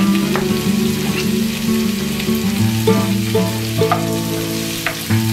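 Sliced onions, tomatoes and garlic sizzling in hot oil in a frying pan, stirred with a spatula that scrapes and ticks against the pan, over background music with sustained low notes.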